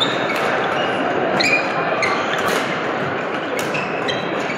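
Badminton rally: sharp racket strikes on the shuttlecock about once a second, with shoes squeaking on the court floor, over a steady hum of noise from the hall.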